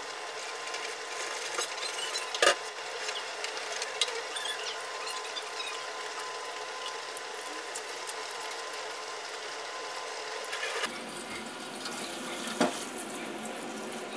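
Kitchen work at a counter: a steady hiss under scattered clinks and knocks of dishes and utensils, the sharpest a clatter about two and a half seconds in.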